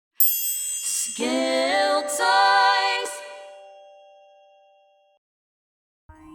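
Electronic intro jingle: a bright chime, then layered synth tones that slide up in pitch and shift twice before ringing out and fading away. Background music starts near the end.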